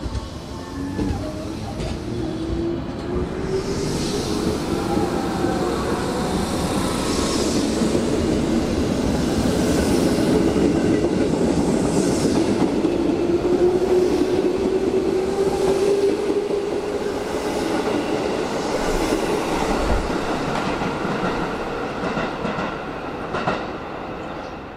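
JR West 221-series electric train pulling out of the platform: the traction-motor whine rises steadily in pitch as it accelerates, over rumble and wheel clatter at the rail joints. The sound builds as the cars pass, then fades as the train runs away.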